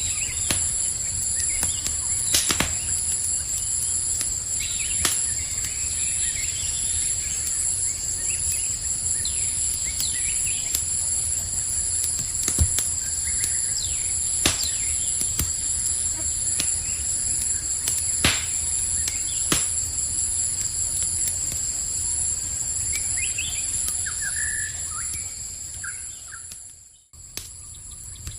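Campfire crackling, with a handful of sharp pops, over the steady pulsing chirp of crickets and a low rumble. The sound drops out briefly near the end.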